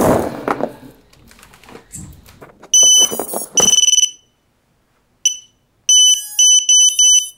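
A brief clatter of handling at the start, then a piezo buzzer on a small FPV quadcopter beeping at one steady high pitch: two longer beeps, a short one, then a quick run of four. It is a low-battery warning: the LiPo is flat.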